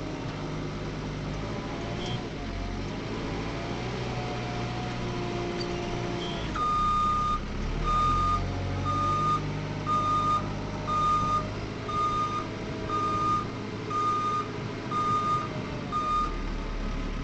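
Diesel engine of a JCB 3CX backhoe loader running and changing pitch as it works. About six seconds in, a reversing alarm starts beeping, a single steady tone about once a second, ten beeps in all.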